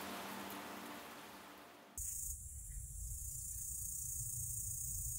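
Rain noise with a faint music track dying away over the first two seconds. Then an abrupt cut to a steady high hiss with a low rumble underneath.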